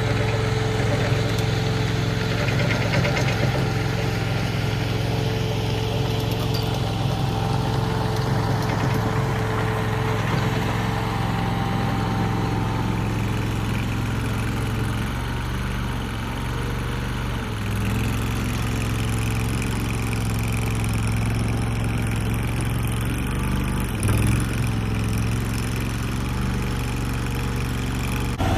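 Mini skid steer's engine running steadily, with a slight change in its note about halfway through and a brief bump near the end.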